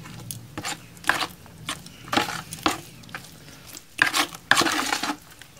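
Top coat plaster being mixed with water in a bucket, nearly at a creamy butter consistency: irregular wet squelching and scraping strokes that grow louder and quicker in the last second and a half.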